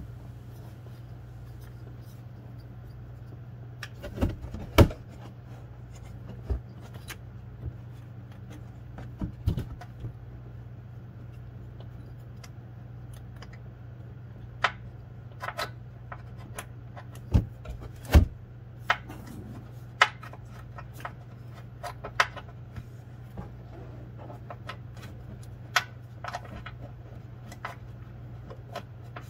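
Irregular light metallic clicks and knocks as a hand works the lower bolt into the new serpentine belt tensioner's bottom mount, with the two loudest knocks about five seconds in and eighteen seconds in. A steady low hum runs underneath.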